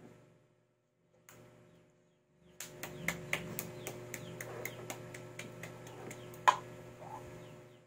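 A quick run of light, sharp clicks or taps, about four a second, starting a little over two seconds in and ending with one louder click near the end, over a faint steady hum.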